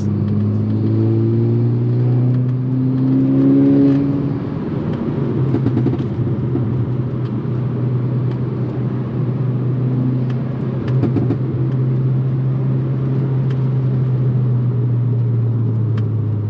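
Modified MK6 Volkswagen Golf R's turbocharged four-cylinder engine and aftermarket turbo-back exhaust, rising in pitch as the car accelerates over the first few seconds, then settling into a steady cruise.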